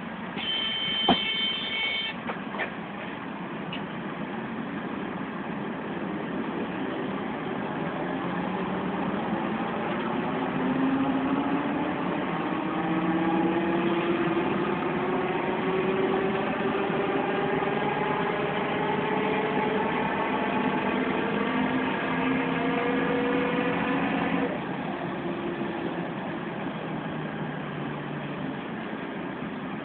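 Volvo B10M city bus pulling away: a short beep near the start, then the howl from its worn-out gearbox rising slowly in pitch as the bus gathers speed. The howl drops off sharply about three-quarters of the way through.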